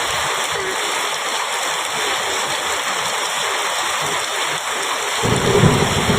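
Heavy rain pouring steadily on a metal roof. About five seconds in, a low rumble of thunder rolls in beneath it.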